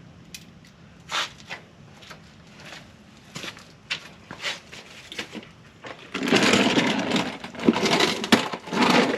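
A few light clicks and clinks, then about six seconds in a loud rattling scrape with sharp knocks that keeps going: a mechanic's creeper being pulled over and rolled on its casters.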